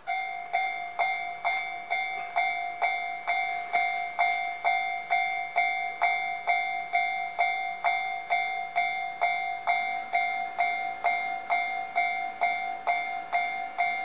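Japanese level-crossing warning alarm starting suddenly and ringing a steady, evenly repeated ding about twice a second, signalling that a train is approaching and the barriers are coming down.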